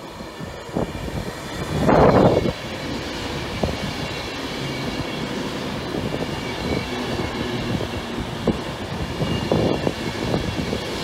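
Avanti West Coast Class 390 Pendolino electric train running along the platform: a steady rumble of wheels with a faint high whine from its electrical equipment, and a brief loud rush of noise about two seconds in.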